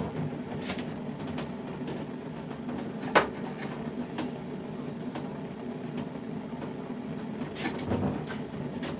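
Scattered clicks and small knocks of a heated palette knife being worked into the hide-glued seam between a double bass's back and ribs to part the joint, with one sharp crack about three seconds in. A steady low hum runs underneath.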